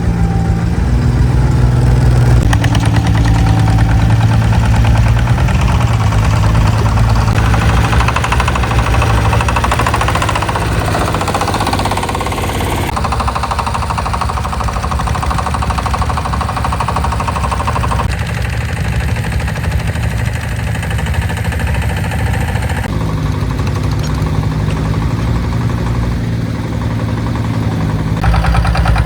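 Diesel engine of working machinery running continuously, its sound changing abruptly several times.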